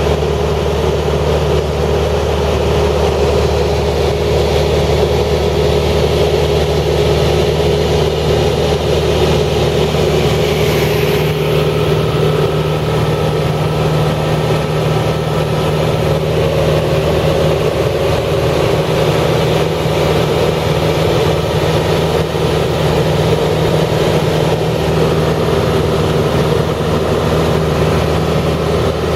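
A steady engine or machine running at a constant speed, with a low hum that does not change.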